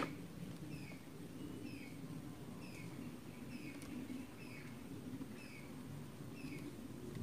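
A bird calling over and over, a short falling chirp about once or twice a second, over a low steady rumble. A sharp click right at the start.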